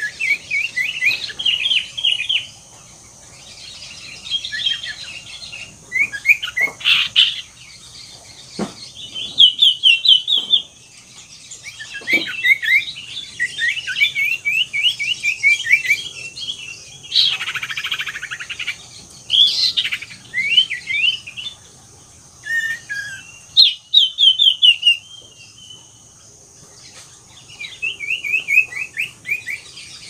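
Common iora (cipoh) singing vigorously: repeated phrases of rapid, sharp trilling notes, each a second or two long, with short pauses between.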